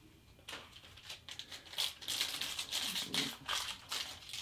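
A Panini Prizm foil card pack crinkling and tearing as it is worked open by hand, in a dense run of crackles starting about half a second in; the pack is hard to open.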